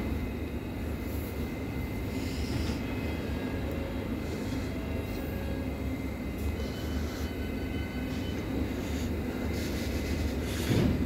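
London Underground S8 Stock train departing, a steady low rumble with a faint whine above it, swelling briefly near the end.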